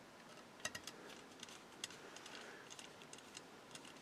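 Faint, irregular small clicks and ticks from a plastic fog-light piece and small screws being handled and fitted on a diecast model car with a small screwdriver.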